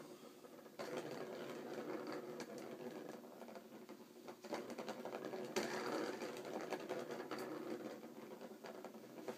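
A plastic ball rolling around the plastic track of a circular cat scratcher toy, giving a continuous rattling whirr. It picks up a little under a second in, with a sharper knock about five and a half seconds in.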